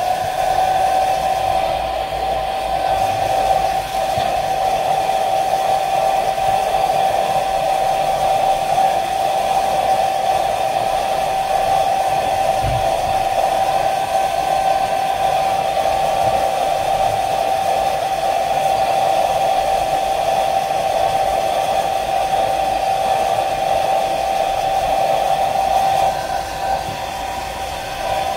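Hair dryer running steadily, a constant whine over the rush of air, blowing hot air onto a phone frame to make freshly applied double-sided tape stickier. It is briefly quieter near the end.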